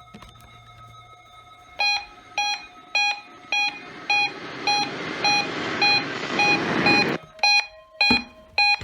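Electronic alert beeping from a weather radio, about two short beeps a second, set off by the Required Weekly Test. Under the first part of the beeping, a hiss of radio static swells and then cuts off suddenly.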